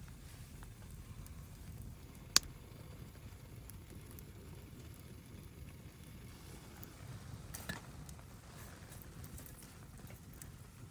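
Wood fire burning in a fire pit, crackling softly, with one sharp loud pop a couple of seconds in and a smaller one near the end.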